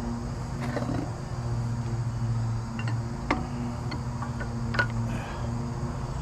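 Steady low mechanical hum in a workshop, with a few short metallic clicks and taps from parts and tools being handled.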